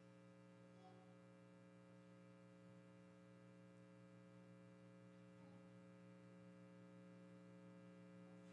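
Near silence with a steady electrical mains hum.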